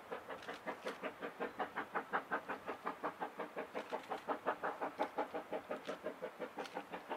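Vale of Rheidol narrow-gauge steam locomotive chuffing: a rapid, even run of exhaust beats at about seven a second.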